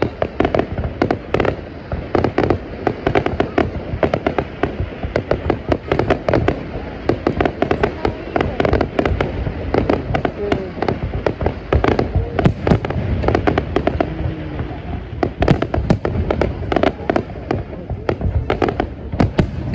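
Aerial fireworks display: a dense, continuous barrage of sharp bangs and crackles, several shells bursting every second.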